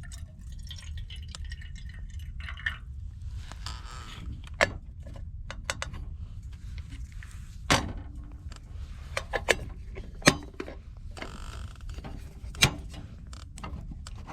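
Metal cookware and utensils clinking and knocking: a scattered series of sharp clicks and knocks with short scrapes between them, over a steady low rumble.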